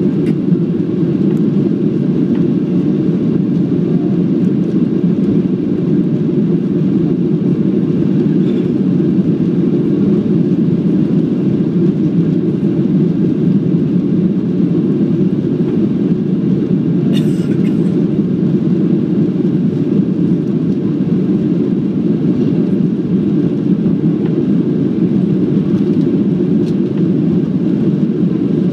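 Steady cabin noise inside a Boeing 737-700 climbing after take-off: the CFM56-7B turbofans at climb power and the airflow over the fuselage make an even, low rush, with one brief click a little past halfway.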